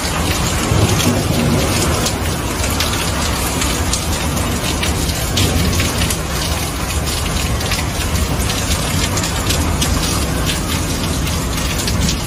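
Heavy rain falling steadily, with many sharp drop hits close to the microphone over a low rumble that is strongest about a second in.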